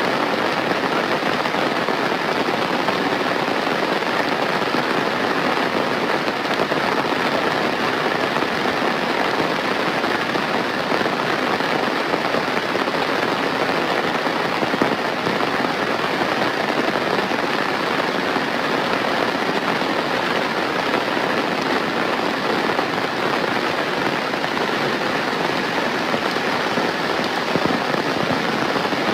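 Steady heavy rain falling, a dense even hiss of drops on surfaces.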